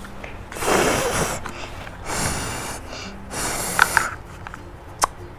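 Three short breathy hissing sounds, each under a second and about a second apart, followed by a few light clicks.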